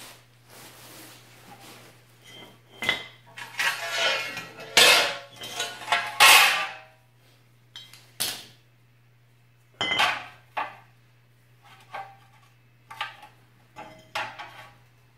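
Steel pieces, square tubing and flat plate, clanking and scraping as they are set down and shifted against each other on a concrete floor. A dense run of rattling scrapes and clanks in the middle, then single clanks a second or two apart.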